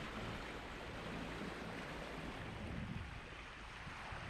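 Steady rush of sea water, as of waves and wake around a moving sailboat, with a faint low hum underneath.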